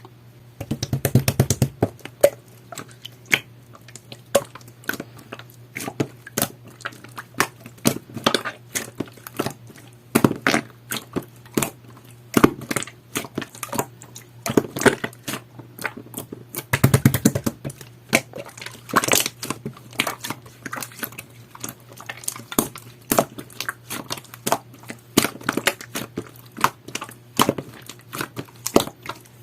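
Clear, jelly-textured slime being squeezed and pressed by hand, giving rapid, irregular clicks and pops. There are denser clusters of crackling about a second in and again around seventeen seconds, over a faint steady low hum.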